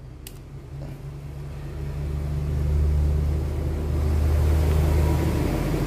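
Low engine rumble of a motor vehicle, building up over the first two seconds and then holding steady. A single small click comes just after the start.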